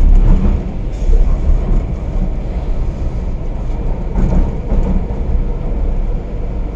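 MTR Kwun Tong line metro train running along the track, heard from inside the carriage: a steady, loud low rumble of wheels on rail, with a few brief knocks as it goes.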